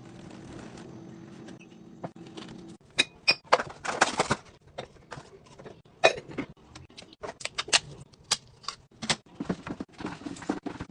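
All-purpose cleaner poured from one plastic bottle into another, a steady pour for about three seconds. Then a run of sharp clicks, taps and rustles as cotton swabs are handled and dropped into a glass jar.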